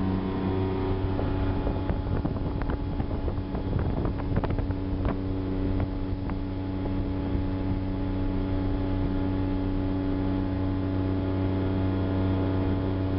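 A 1979 Volvo Penta 400 outboard motor running at a steady speed, driving a small speedboat. A few brief thumps come between about two and five seconds in.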